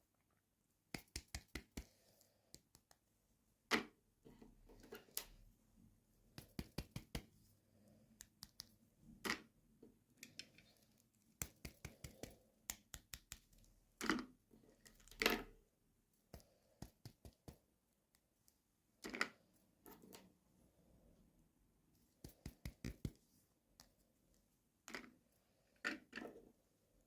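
Small plastic toy pieces and packaging being handled: irregular sharp clicks and taps, some in quick runs, with faint rustling between them.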